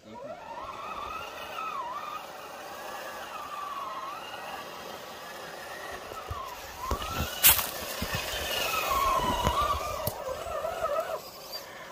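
Electric motor and gearbox of a radio-controlled scale crawler truck whining as it crawls over rock, the pitch rising and falling as the throttle is eased on and off. A single sharp knock about seven and a half seconds in.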